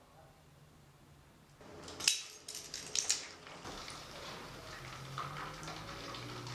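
A red-hot steel blade being quenched in a can of oil. A sharp crackle and sizzle comes about two seconds in and more crackles around three seconds, then a steady fainter hiss as the oil flares up and burns on the surface.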